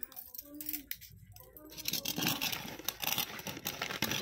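A hand mixing gram flour (besan) with water in a steel bowl to make batter: a dense, crackly scrunching rustle that starts about two seconds in.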